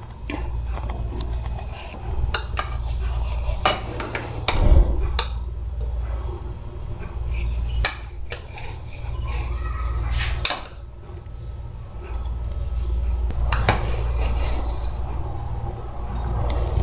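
A kitchen knife slicing through a soft sponge fruit cake, the blade clicking and knocking against the plate now and then, with the sharpest knock about five seconds in. A steady low hum runs underneath.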